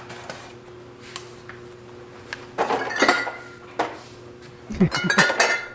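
Glass jars and bottles clinking and knocking together as they are lifted off a crowded pantry shelf. The clinks come in two bunches, about three seconds in and near the end, a few ringing briefly.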